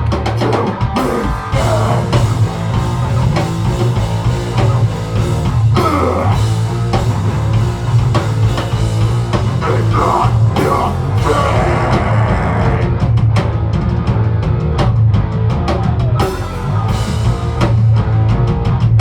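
Heavy rock band playing loud and live: distorted electric guitars, bass and a pounding drum kit, in a dense, unbroken wall of sound.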